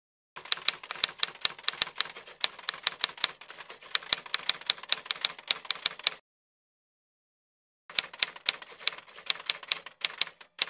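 Typing sound effect: a quick run of sharp key clicks laid under text being typed out on screen. The clicks stop for about two seconds midway, then start again.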